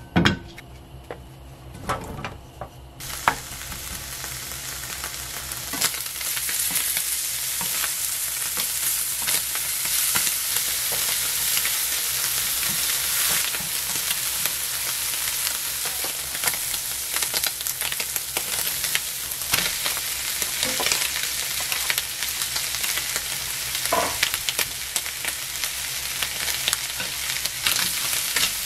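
Ham strips, then sliced onion and green onion, frying in oil in a non-stick frying pan over a flame the cook found too high, with the clicks and scrapes of tongs and a wooden spatula stirring. The sizzle starts about three seconds in and grows louder a few seconds later.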